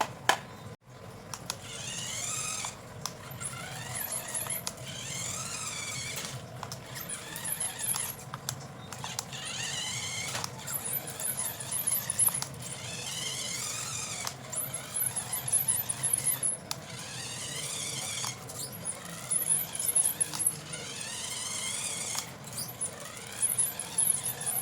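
Small electric motor and gearbox of a 1:18-scale RC monster truck whining in repeated bursts, about every three to four seconds, the pitch wavering up and down with throttle, with high squeaky chirps between bursts. A sharp click just after the start.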